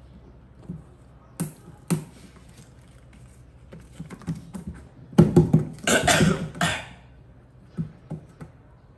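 A baby monkey's hands slapping and scrabbling on a box as it grabs across and climbs up: a couple of sharp taps, then a loud flurry of scrabbling and rustling about five to seven seconds in, and a few small taps near the end.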